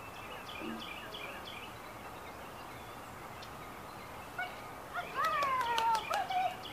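Airedale Terrier puppy whining: one long, high whine that falls slowly in pitch, starting about five seconds in, with a few sharp clicks over it. Faint bird chirps come before it.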